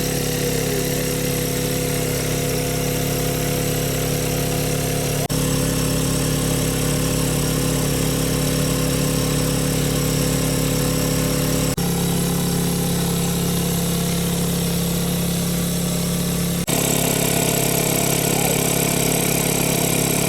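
Small engine driving a water pump, running steadily with a constant hum. The tone changes abruptly three times.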